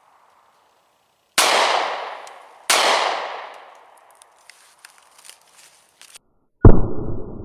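Three 9mm pistol shots from an M&P9 Shield firing full metal jacket rounds. The first two come about a second and a half apart, each echoing away. A few faint clicks follow, then a third shot near the end, louder and duller than the first two.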